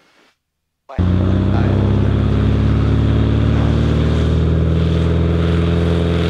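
Cessna 180's six-cylinder Continental O-470 engine and propeller at takeoff power during the takeoff roll. The sound comes in abruptly about a second in and holds a loud, steady drone whose pitch rises slightly as the aircraft gathers speed.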